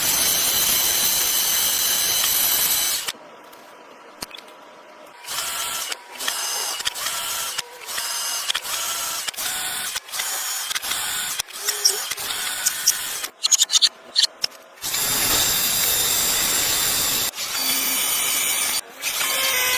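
A power tool or machine tool running in stretches with a high whine, stopping and starting several times, with a short burst of clicking near the middle.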